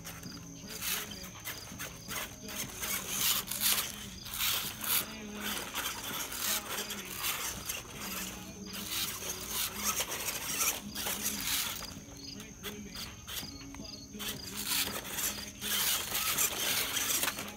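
Small electric drive motors and plastic gearboxes of a toy 4x4 RC rock crawler whining in repeated bursts as it is throttled on and off. A song with singing plays underneath.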